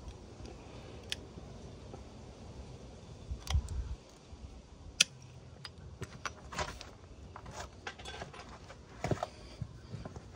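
Metal engine parts clinking and clicking as they are handled: the transmission gear shaft and its gears from a Suzuki RM85 engine being fitted against the crankcase. Scattered sharp clicks, the loudest about five seconds in, coming thicker in the second half, with a low bump about three and a half seconds in.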